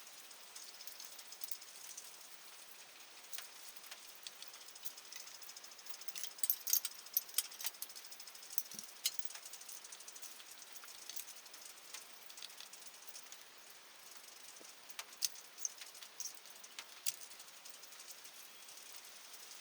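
Heavy rain hissing steadily, with scattered sharp metallic clicks and clinks of tools and engine parts being handled, bunched about six seconds in and again around fifteen seconds in.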